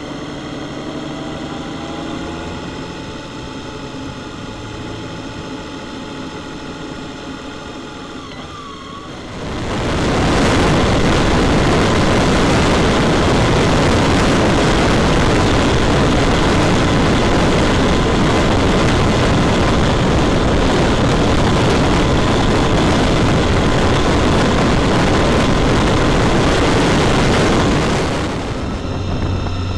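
Motorcycle engine running steadily, heard from a camera on a moving bike. About a third of the way in, a loud, steady rush of wind and road noise takes over and drowns it out, easing off near the end.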